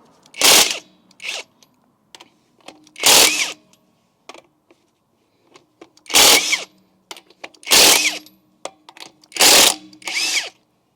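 Power impact wrench spinning the lug nuts off a Toyota 4Runner's rear wheel, in about seven short bursts of about half a second each, with a whine that rises and falls in each burst and light clicks between them.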